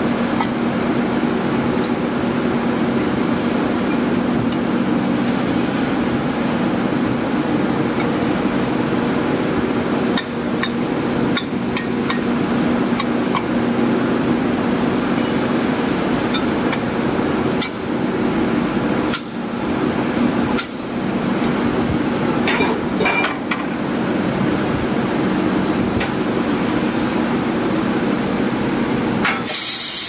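Steady drone of steel-plant machinery with a constant low hum, and scattered metallic clinks and knocks as the ladle slide gate mechanism is worked on by hand. A hiss starts near the end.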